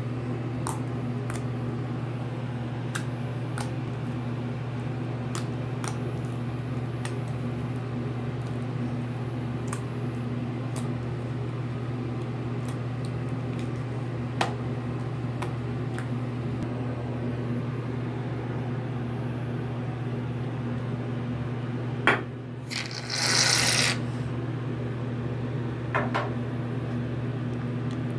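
Steady low hum with scattered faint clicks of slime being handled. About three-quarters of the way through, after a click, comes a hiss of about a second: shaving cream sprayed from an aerosol can.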